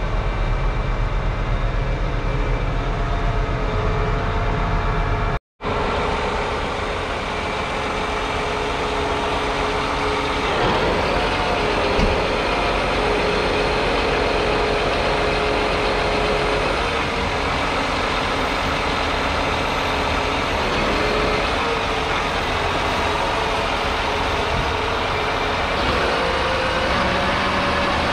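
John Deere 8RX410 tractor's 9.0-litre six-cylinder diesel engine running steadily. The sound cuts out for an instant about five seconds in and comes back slightly less deep.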